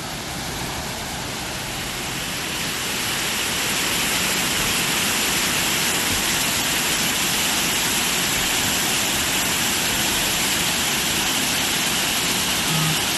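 Waterfall rushing as a steady roar of falling water, growing louder over the first few seconds and then holding steady.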